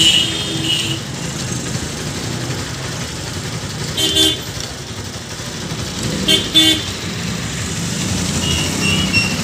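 Steady background traffic noise with vehicle horns honking: one short toot about four seconds in and a quick double toot about six and a half seconds in.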